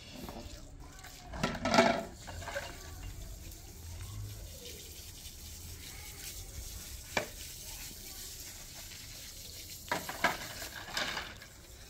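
Dishes being washed by hand in a plastic basin: plates and utensils clink and clatter, loudest about two seconds in and again near the end, with a sharp single click in the middle, over the faint sound of water.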